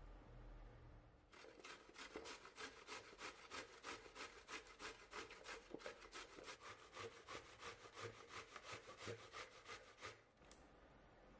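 Peeled zucchini rubbed over the coarse holes of a stainless-steel grater: faint, even rasping strokes, about four or five a second, starting a little over a second in and stopping shortly before the end.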